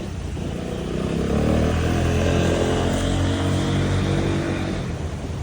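A motor vehicle driving past outside, its engine note growing louder, holding for a couple of seconds, then fading away.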